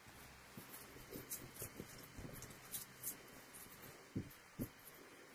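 Faint scattered small clicks and soft knocks of handling, with two louder knocks a little after four seconds in.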